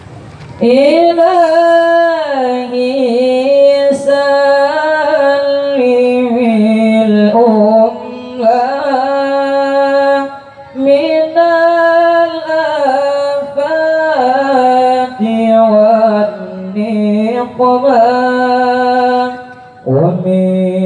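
A young male qari reciting the Quran in the melodic tilawah style into a hand-held microphone: long held notes with ornamented runs, the phrase beginning about a second in. After a short breath near the end, a new phrase starts at a lower pitch.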